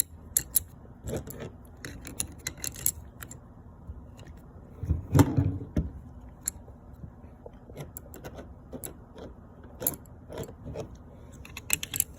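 Someone walking while carrying and handling a loaded pistol crossbow: footsteps, with scattered clicks, scrapes and rattles of gear, and one louder knock about five seconds in.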